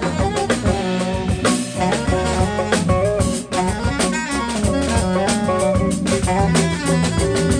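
Live jazz band playing: alto saxophone lead over electric guitar, electric keyboard and drum kit with cymbals.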